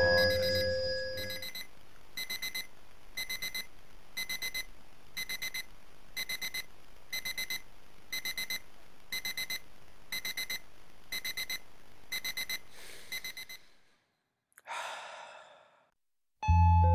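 Electronic alarm clock beeping in groups of four quick high beeps about once a second, fading out near the end. A short breathy sound follows, and music starts just before the end.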